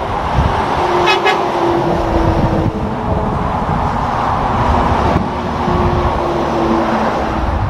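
Highway traffic going by, with a steady rush of tyres and engines. Twice a tonal whine from a passing vehicle sinks slightly in pitch as it goes past.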